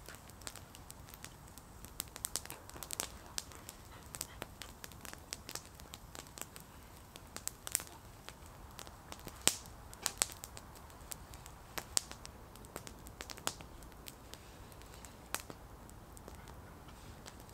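Wood campfire crackling, with irregular sharp pops and snaps, the loudest about nine and a half seconds in.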